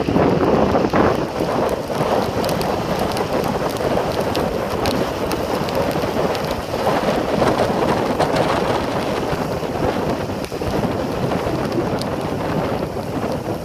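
Steady rushing wind and road noise from riding in a moving vehicle, with scattered small crackles on top.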